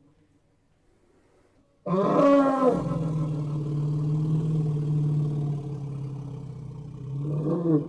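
Elephant calling: after a quiet start, a sudden loud trumpet-like blast about two seconds in settles into a long, steady low call lasting several seconds, then a shorter call rises near the end.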